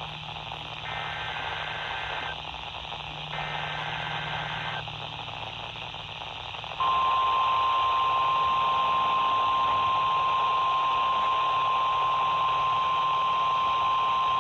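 NOAA Weather Radio weekly test signal heard through a radio receiver over steady static hiss. First come the last two bursts of the SAME digital alert header, each warbling data burst about a second and a half long with about a second between them. After a short pause, the steady 1050 Hz warning alarm tone starts about seven seconds in, louder, and holds.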